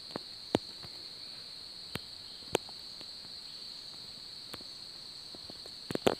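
Steady high-pitched insect drone from the forest, with a few sharp isolated clicks about half a second and two and a half seconds in, and a quick cluster of clicks near the end.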